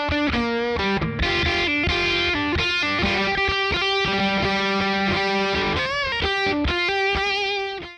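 Electric guitar playing a line of single notes, with a note bent and wavering about six seconds in, fading out at the end.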